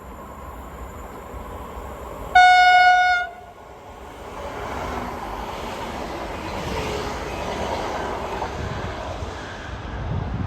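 Train horn sounding one short, single-pitched blast about two and a half seconds in, then the steady rush and rumble of the train running past.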